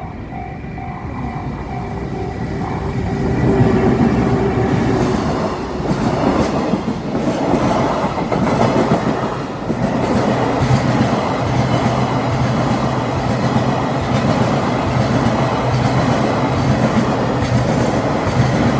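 Freight train passing a level crossing at close range. It grows louder over the first few seconds, then the wagons go by with a steady rumble and a regular clatter of wheels over the rail joints.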